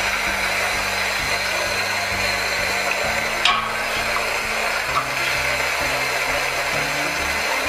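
Background music with a bass line stepping from note to note, over a steady rushing noise. A short click comes about three and a half seconds in.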